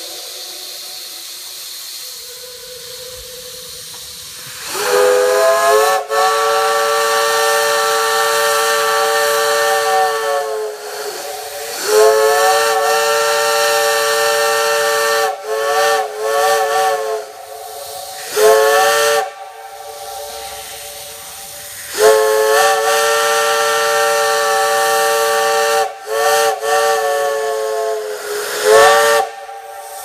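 Steam whistle on locomotive steam, sounding a chord of several notes at once. After a few seconds of soft steam hiss it gives long blasts of several seconds, each scooping up in pitch as the valve opens, broken by quick short toots.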